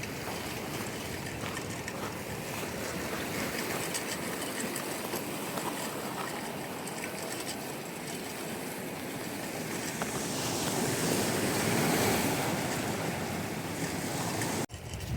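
Ocean surf washing in, with wind on the microphone; the surge grows loudest about two-thirds of the way in. The sound drops out for an instant near the end.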